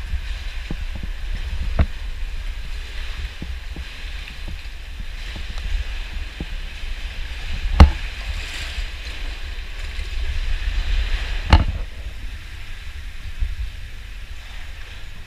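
A boat under way on the water: a steady low rumble of wind on the microphone and a hiss of moving water, with a few sharp knocks, the loudest about eight seconds in.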